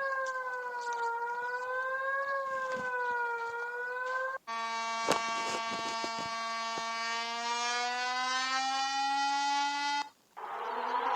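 Electronic emergency alert tones played one after another. First a tone that wavers slowly up and down, then it cuts off and a steady, buzzy tone follows that creeps up in pitch. After a short break near the end, another alert tone begins with a rising glide.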